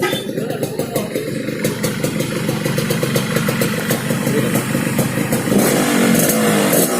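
Yamaha RX-King 135's single-cylinder two-stroke engine running through a stock-bodied exhaust fitted only with a modified baffle, carburettor set rich: a slightly growly, crisp exhaust note. It gets louder, with a clearer engine pitch, from about five and a half seconds in.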